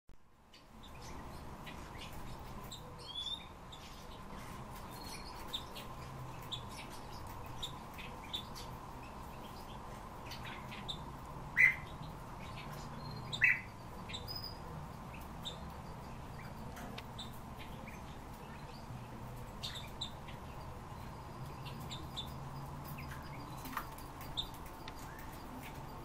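Caged finches giving scattered short chirps and calls, with two louder calls about two seconds apart near the middle. A steady low hum and a faint steady tone run underneath.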